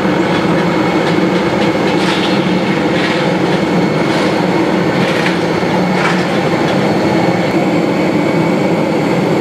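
Steady low mechanical drone of airliner and ground-vehicle machinery at the stand, with a few short clanks between about two and six seconds in.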